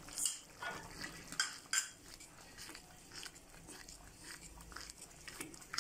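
Wooden spatula stirring a sauce in a wok as cornflour slurry is mixed in, knocking and scraping against the pan a few times in the first two seconds, then softer stirring.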